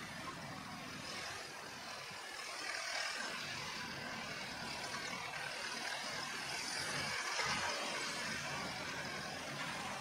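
Merlo TF35.7 telehandler's diesel engine running as the machine drives across the hayfield, a steady noisy rush that swells slightly about three and again about seven seconds in.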